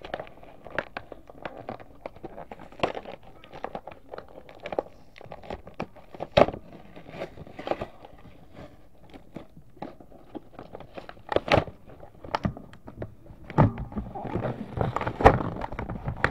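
Stiff plastic blister packaging of a Nerf Jolt blaster being pried and torn open by hand, with irregular crackles, crinkles and sharp clicks. It gets busier and louder near the end as the pack gives way.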